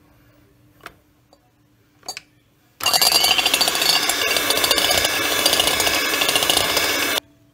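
Electric hand mixer whipping raw egg white in a bowl. After a couple of small knocks, the motor starts about three seconds in with a rising whine, runs loud and steady for about four seconds, then cuts off suddenly.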